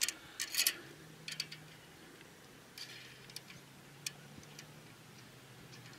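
Scattered light metallic clicks and taps as a brass brake-line adapter fitting is handled against a steel brake line while being lined up to thread into the master cylinder, over a faint steady low hum.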